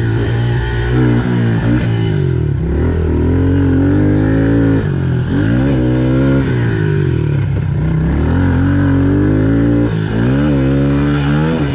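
Honda CRF110F pit bike's small air-cooled four-stroke single being ridden hard. The engine note climbs and drops again and again as the throttle is worked on and off.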